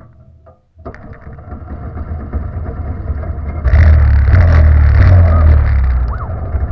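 Go-kart's small engine catching about a second in and running, then revved up louder for a couple of seconds near the middle before settling back.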